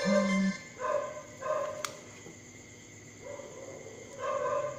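A dog barking, four short barks with pauses between them. A steady electric hum, typical of a transformer soldering gun, sounds in the first half second.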